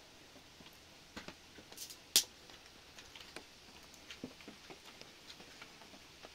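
Dry sticks and twigs being handled and laid on a dirt floor: scattered light clicks and knocks, with one sharp click a little over two seconds in.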